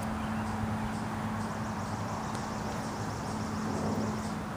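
Outdoor background: a steady low hum from a distant motor, with a few faint high chirps.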